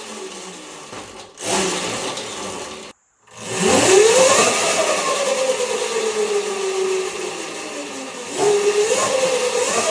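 Electric motorcycle's drive motor whining as the throttle is twisted in sport mode: the pitch rises sharply, then falls slowly as it winds down, and climbs again twice near the end. Before a short break about three seconds in, an earlier spin-down is heard falling in pitch, with a burst of noise.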